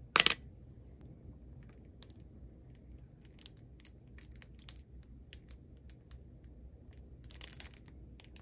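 A 10-yen coin dropped into a small metal dish, landing with one sharp clink and a brief ring. Then scattered faint clicks and crackles as the soy sauce squeeze bottle is handled and squeezed over the dish, with a short crackly splutter near the end.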